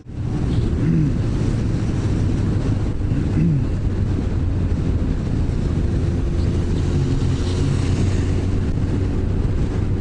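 Yamaha FZ1 inline-four motorcycle cruising at steady speed: the engine hums evenly under steady wind noise on the helmet-mounted microphone.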